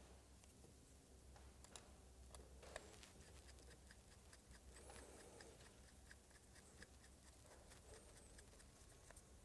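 Near silence: faint room hum with light small clicks and scratches of a screwdriver tip working at a plastic wiring connector.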